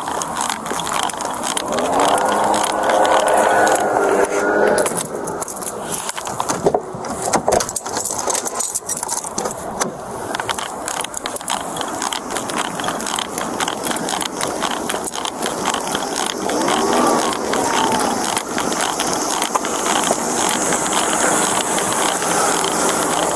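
Rustling, scraping and rattling handling noise from a body-worn camera as the officer moves, over road traffic, with a muffled voice briefly about two seconds in and again about two-thirds of the way through.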